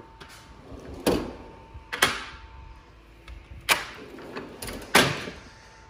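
Four sharp metal clacks, each with a short ring, as hand tools and the steel drawers of a Snap-on Epiq roll-away tool box are handled.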